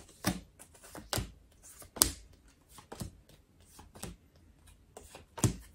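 Tarot cards being dealt from the deck onto a wooden tabletop, each card landing with a short tap, about once a second.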